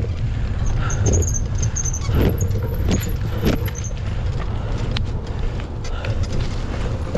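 Full-suspension mountain bike ridden along a bumpy dirt trail: a steady low rumble of tyres and wind on the microphone, with frequent rattles and knocks from the bike over bumps, thickest in the first half.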